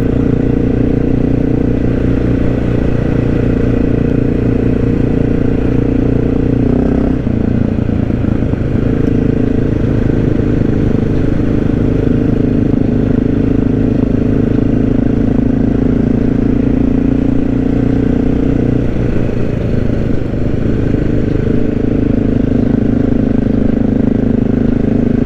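Honda XR650L's air-cooled single-cylinder four-stroke engine running steadily under way, its note changing about seven seconds in.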